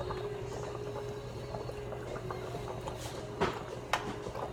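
Large stainless pot of water bubbling on the stove over a steady low hum. Near the end come two sharp metal knocks as a spoon strikes the pot.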